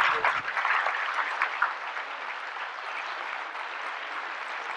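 Large audience applauding. The clapping is loudest at the start and dies down over the first couple of seconds to a softer, steady level.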